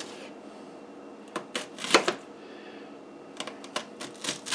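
Kitchen knife slicing an onion into thin rings on a plastic cutting board: two runs of quick cuts, each ending in a sharp knock of the blade on the board, about a second and a half in and again near the end.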